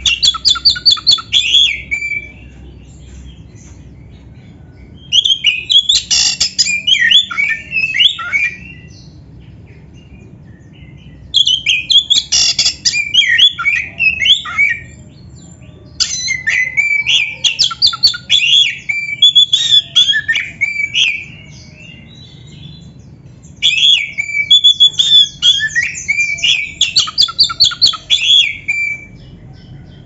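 Oriental magpie-robin of the black-breasted form (kacer dada hitam) singing: five bouts of rapid, varied notes, each a few seconds long, with short pauses between them.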